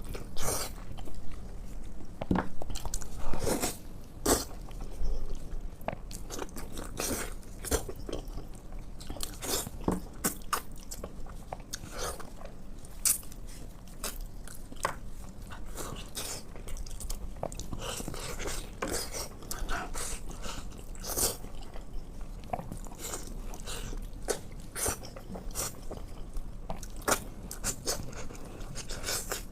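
A person chewing and biting into pig's tail, with many sharp wet clicks and smacks of mouth and teeth. The bites are loudest in the first few seconds, then settle into steadier chewing.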